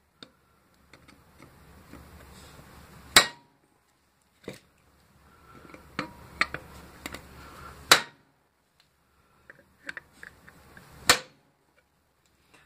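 Hammer blows on a steel chisel set alongside the weld of a microwave transformer's laminated steel core, cracking the seam open: three hard metallic strikes a few seconds apart, with lighter knocks and scuffing between.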